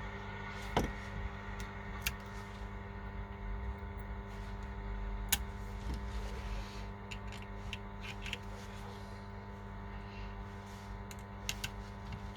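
Steady electrical hum with scattered small clicks and taps, the sharpest about five seconds in and a few quick ones close together near the end.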